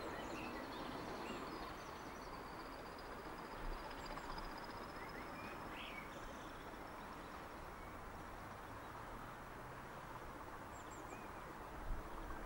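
Quiet rural ambience with scattered short bird chirps, while the noise of a train that has just passed dies away over the first couple of seconds.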